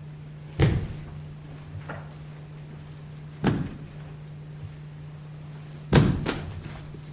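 Three heavy thumps, about two and a half seconds apart, over a steady low hum; the last is the loudest and is followed by a couple of smaller knocks.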